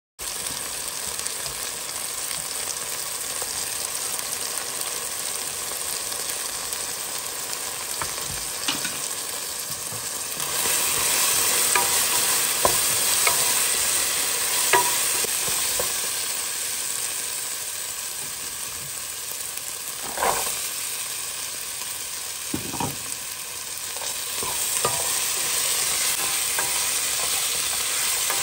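Diced chicken and onion sizzling as they fry in a pot, stirred and scraped with a wooden spoon. The sizzle gets louder about ten seconds in, and the spoon knocks against the pot a few times.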